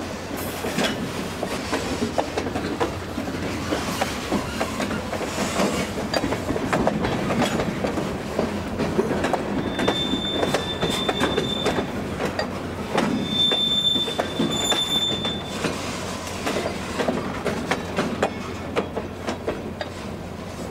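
Freight cars rolling slowly past on yard track, wheels rumbling with a stream of clicks over rail joints, and a high steady wheel squeal twice, each lasting about two seconds, around the middle.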